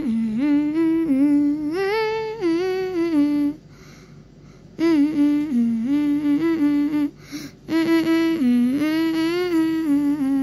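A voice humming a slow, wavering tune in three phrases with short breaks between them.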